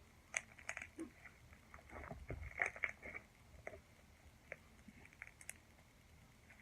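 Slime being squished and stretched by hand, giving irregular wet clicks and pops, thickest in the first three seconds and sparser after.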